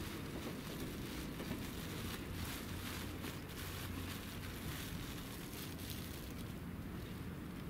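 Steady low rumble and hiss of outdoor background noise, with no distinct event standing out.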